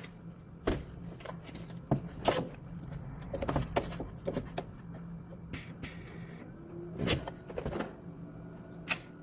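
Irregular clicks and knocks of hand tools working at a broken exhaust manifold bolt in an engine bay, over a steady low hum, with a hiss lasting about a second midway through.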